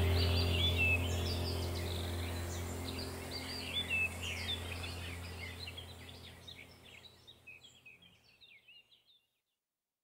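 Background track of chirping birdsong over a low steady drone, the whole mix fading out to silence about nine seconds in.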